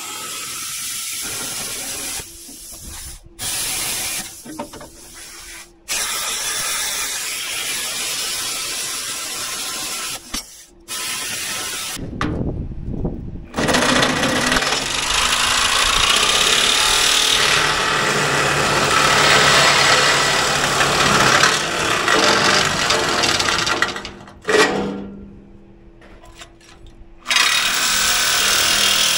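Power tools working the steel of a wrecker bed to cut out the opening for an inset toolbox: loud, harsh running noise in several stretches that stop and start abruptly.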